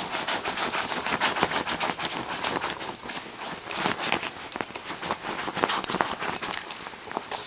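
Puppy digging in bedding: its paws scratch at blankets in a quick, irregular run of scrapes.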